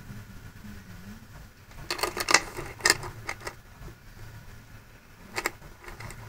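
Handling noise: a quick run of sharp clicks and knocks about two seconds in, then a single click near the end, over a low steady hum.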